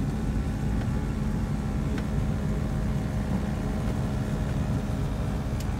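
Twin piston engines of a Piper PA-31 Navajo running at low power on the ground after landing, heard inside the cabin: a steady drone with a constant low hum and a few faint ticks.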